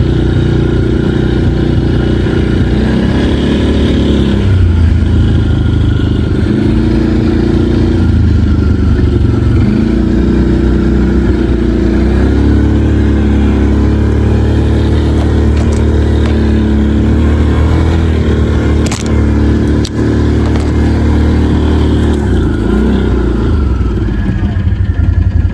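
Can-Am ATV engine running under load through deep snow, the throttle opening and easing off several times so the engine note rises and falls. Two brief sharp knocks come about three-quarters of the way through.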